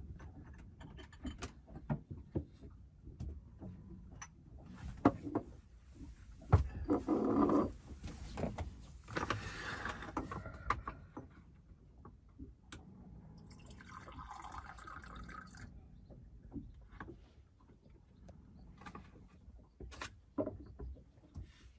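Galley work in a small cabin: scattered clinks and knocks as containers and utensils are handled, with two stretches of liquid being poured, one about five seconds in and a shorter one midway.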